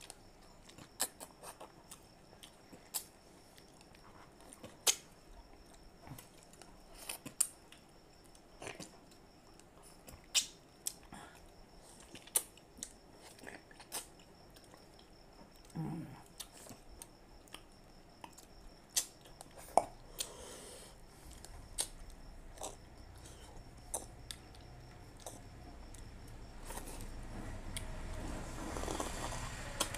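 Mouth sounds of people eating ripe mango by hand, biting and sucking the flesh off the skin: irregular sharp wet clicks and smacks, about one or two a second. A longer, louder noisy stretch builds near the end.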